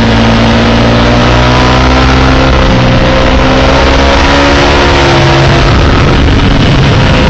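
Sport motorcycle engine running hard at high revs, recorded from the bike itself, with loud wind rush over it. The engine note holds steady, then sags and climbs a little midway as the throttle is worked.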